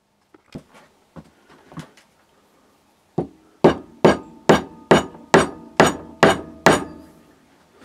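Steel linear shafts being knocked down into a tight 3D-printed plastic block: a few light handling clicks, then from about three seconds in about eight sharp strikes, roughly two a second, each leaving a brief metallic ring from the rods.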